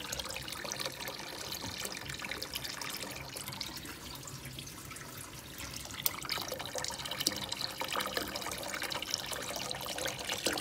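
Water running into the empty stainless-steel tank of a 10-litre ultrasonic cleaner, filling it: a steady splashing rush that starts suddenly.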